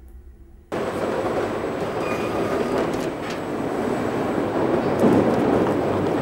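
Packaging-line machinery and conveyor belts running, cutting in suddenly about a second in as a loud, steady mechanical noise with a few light clicks, a little louder near the end.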